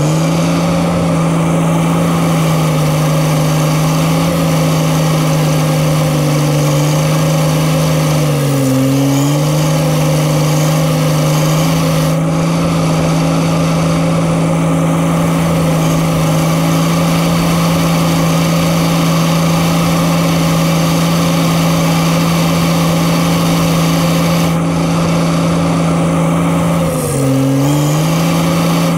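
Diesel engine of a Case earthmoving machine running steadily at high speed; its pitch dips briefly and comes back up twice, about a third of the way in and near the end, as the engine lugs and recovers.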